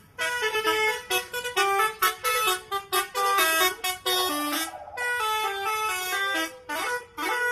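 Telolet bus horns, sets of multi-tone air horns, playing fast tunes of short notes that step up and down in pitch. Two buses trade and overlap their tunes, with brief breaks.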